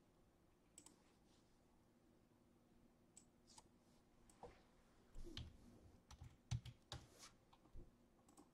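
Faint, scattered clicks and a few soft knocks, loudest in a cluster a little past the middle, over quiet room tone.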